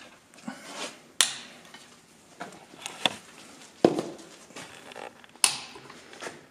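Four sharp clanks of hard objects knocking together, a second or two apart, each ringing briefly, with smaller clicks and taps in between.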